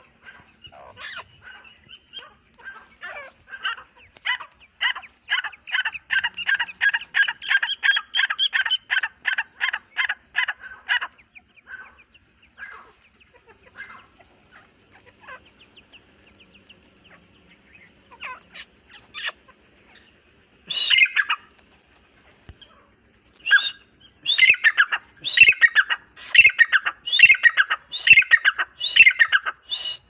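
Grey francolins calling: a fast, regular run of loud repeated notes, a few a second, builds up and stops about eleven seconds in. Then come scattered softer notes and one loud call, and near the end another run of loud repeated notes.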